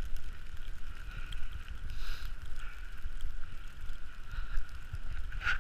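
Gusty blizzard wind buffeting the camera microphone: a low, uneven rumble, with a faint steady high tone over it.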